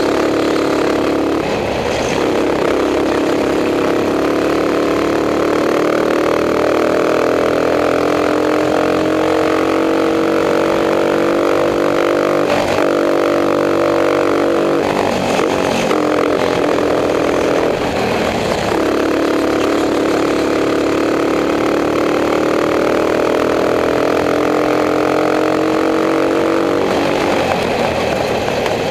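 Racing kart engine at race speed, heard close from on board. The pitch climbs steadily along the straights and drops off several times where the throttle comes off for corners.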